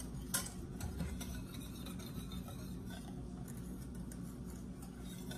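A wire whisk stirring hot chocolate in a stainless steel saucepan: faint scraping and light ticks of the metal whisk against the pan, over a steady low hum.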